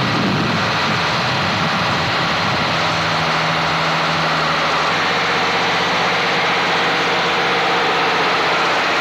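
A heavy engine running steadily at a constant pace.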